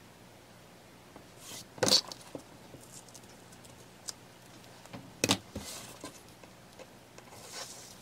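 Double-sided tape and a fabric strip being handled on a cutting mat: soft rustling, with two sharp snaps about two and five seconds in, the second as scissors snip the end of the tape.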